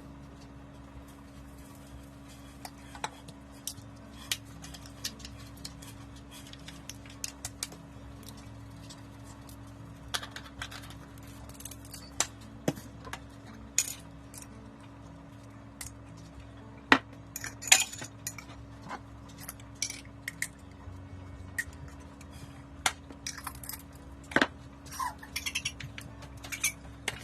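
Irregular clinks and knocks of kitchen bowls, seasoning containers and utensils while raw chicken is rubbed with jerk seasoning, over a steady low hum.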